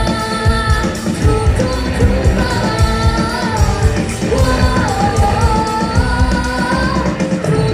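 Live rock band playing: a drum kit keeping a steady beat under amplified guitars, with a melody line that bends and slides in pitch over the top.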